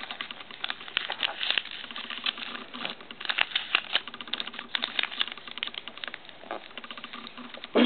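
Thin origami paper being folded and creased by hand: an irregular run of rustling and many short, crisp clicks as the folds are pressed down, while the last folds of a paper cup are made.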